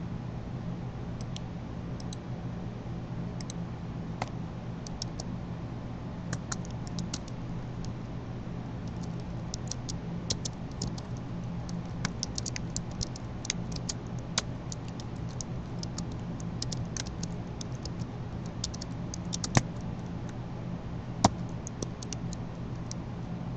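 Computer keyboard being typed on: irregular runs of short key clicks, with two louder single clicks near the end, over a steady low hum and hiss.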